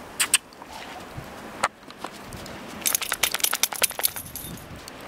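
German Shorthaired Pointer playing with a ball in snow: a few sharp clicks, then, about three seconds in, a second-long run of rapid jingling clicks as the dog shakes its head.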